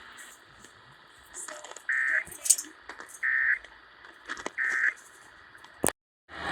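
Three short bursts of Emergency Alert System end-of-message data tones, the buzzy digital code that closes an alert, each about a third of a second long and a little over a second apart, over a steady radio hiss. Near the end there is a sharp click, and the audio cuts out.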